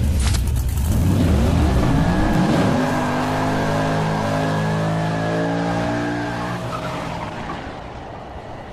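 A car engine revs up, its pitch rising over the first few seconds, then holds at high revs and fades near the end.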